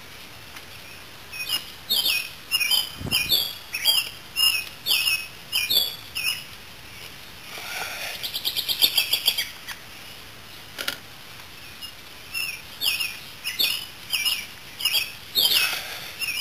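A songbird singing: a string of loud, high, slurred whistled notes about two a second, a fast trill around the middle, then another string of repeated notes near the end. A faint click comes about eleven seconds in.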